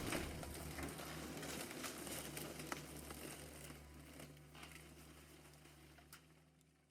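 Tail of an explosion sound effect: a faint low rumble with scattered crackles and debris clicks, dying away to near silence about four seconds in.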